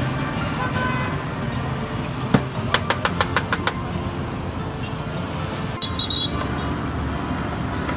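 Busy street traffic, with motorbike engines running and passing. About two and a half seconds in there is a quick run of about ten sharp clicks, and near six seconds a brief high-pitched chirp.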